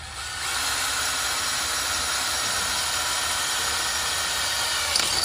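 Electric drill running steadily under load, boring a hole into the metal case of an old oil seal so the seal can be pulled out with self-tapping screws. It stops near the end.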